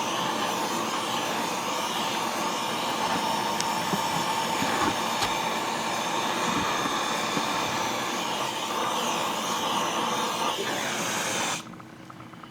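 A loud, steady rushing noise from a blowing tool or machine, which cuts off suddenly near the end.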